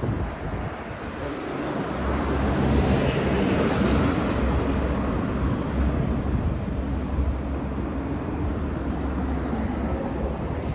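Low, steady rumble of a motor vehicle's engine running close by, swelling about two seconds in and then holding.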